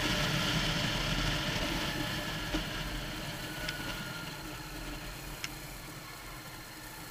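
Motorcycle engine and wind noise while riding, growing gradually quieter as the bike slows, with three small clicks along the way.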